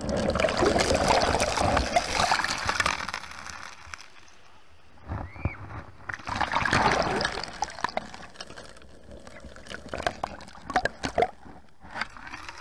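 Shallow sea wash running in over a shore of broken shells and pebbles. It surges twice, in the first few seconds and again about six seconds in, with a quieter wash between. Near the end comes a run of sharp clicks and knocks.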